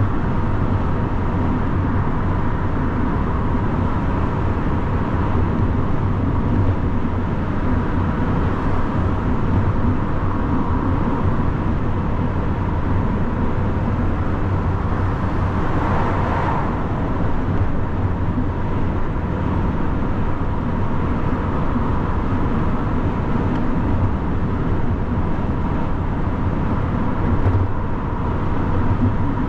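Lorry driving on the motorway: a steady drone of engine and tyre noise with a low hum throughout, and a brief swell of noise about halfway through.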